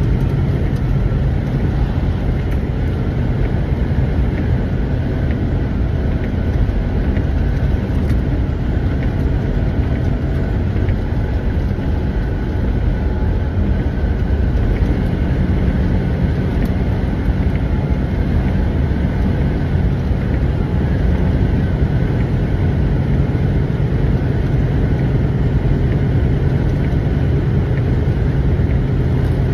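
Semi truck's diesel engine running with a steady low rumble.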